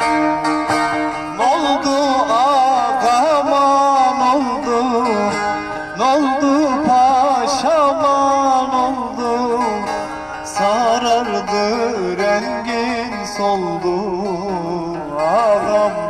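Kurdish song music: a wavering, ornamented melody line over held low notes, with no sung words.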